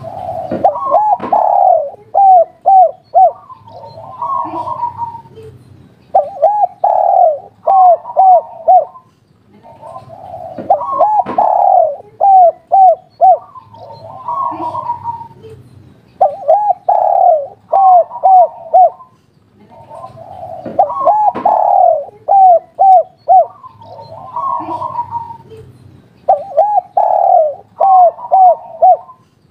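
Spotted dove cooing phrase after phrase every few seconds. Each phrase is a hoarse opening coo followed by a run of three or four short, arched coos, the 'kuk 3' song type that ends in three quick notes.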